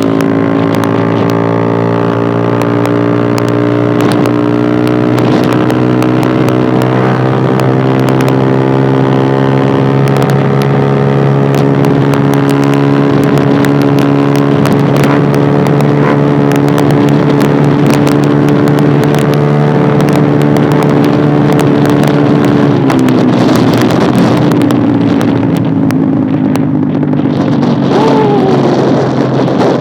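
Yamaha Aerox scooter's single-cylinder engine through an Eternal aftermarket racing exhaust, held at high revs under hard throttle, its pitch creeping slowly upward. About 23 s in the revs drop and the note turns rougher as the throttle eases.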